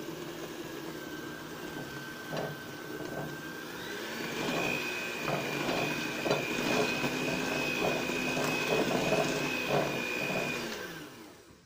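Electric hand mixer beating chocolate cake batter: a steady motor whine that rises in pitch and gets louder about four seconds in, then winds down and stops near the end.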